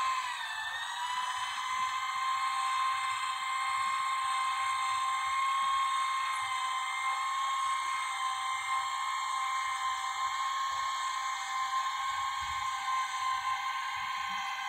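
Winegard Trav'ler satellite dish's elevation motor whining steadily as it raises the dish during its normal power-up routine. The pitch dips briefly about half a second in, then holds level.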